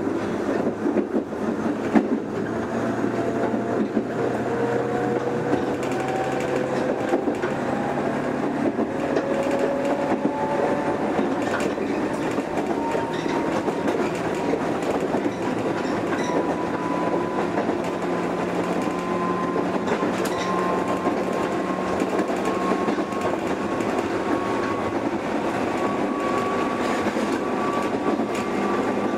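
JR 103 series electric train running: the traction motors' whine rises steadily in pitch as the train gathers speed, over a constant rumble with scattered clicks from the wheels and rails. There is a sharp knock about two seconds in.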